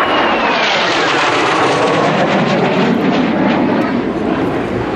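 Kawasaki T-4 jet trainer's twin turbofan engines roaring loud and steady as it flies past overhead. A thin whine falls in pitch over the first two seconds as it goes by.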